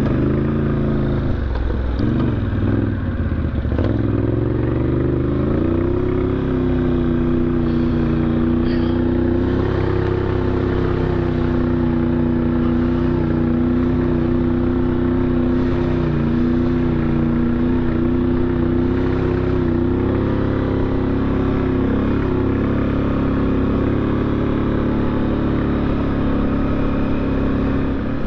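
ATV engine running under way, heard from the machine itself; its pitch rises and falls with the throttle over the first few seconds, then holds fairly steady.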